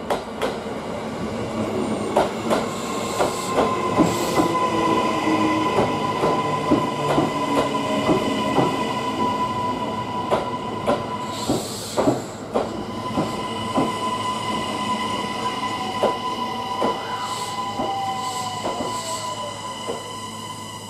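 Kintetsu 80000 series Hinotori electric train rolling slowly through the station, its wheels clicking and knocking irregularly over rail joints. A steady high-pitched tone runs under the clicks, and a tone falls in pitch near the end.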